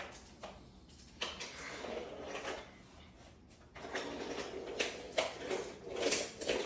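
Wooden toy train rolling and scraping along wooden track, with small clicks and knocks, in two stretches with a pause between.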